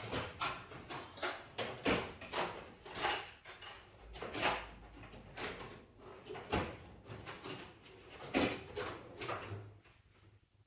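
Metal sockets and hand tools clattering and clinking as they are rummaged through, a string of irregular knocks and rattles.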